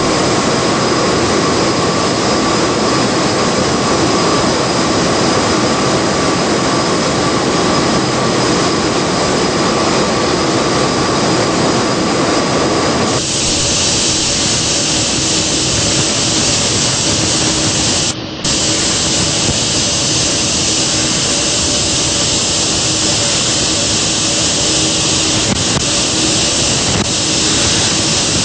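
Loud, steady din of giant stationary gas engines running, a continuous machinery noise with a faint steady hum in it. About halfway through it changes abruptly to a harsher hiss, and it cuts out for a moment a few seconds later.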